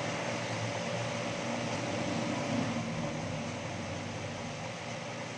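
Steady background hiss with a low hum and a faint steady tone underneath.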